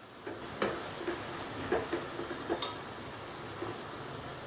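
Onion-and-gram-flour koftas sizzling in hot oil in a non-stick kadhai, with a few light clicks of a slotted spatula against the pan as the fried koftas are lifted out.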